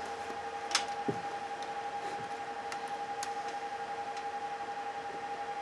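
Multimeter probe tips clicking against the terminals of a NiCd drill battery pack: a few sharp ticks, about a second in and again past three seconds. Under them runs a steady two-note electronic whine.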